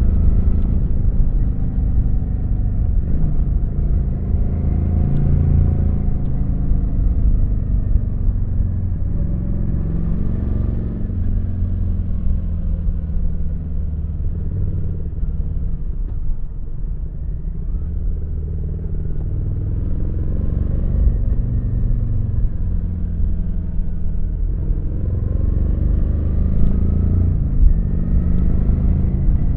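Kawasaki VN900 motorcycle's V-twin engine running on the road. Its pitch rises and falls several times as the throttle opens and closes, over a heavy low rumble.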